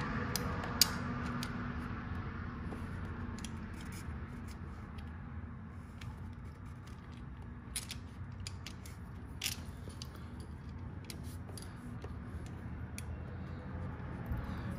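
Scattered light clicks and taps of small metal parts, a bolt and spacer being fitted and threaded in by hand on a motorcycle frame slider bracket, over a steady low hum. The sharpest clicks come about a second in and again about nine and a half seconds in.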